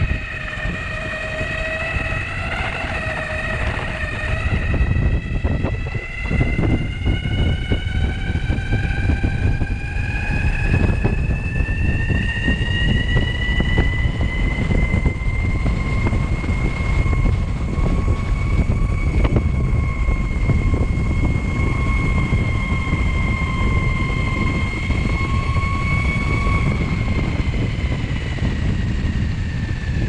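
Belt-drive motors of an Onsra Black Carve electric skateboard whining at speed, the whine climbing in pitch over the first half, holding steady, then dropping near the end as the board slows. Under it runs a steady low rumble of the wheels on the road.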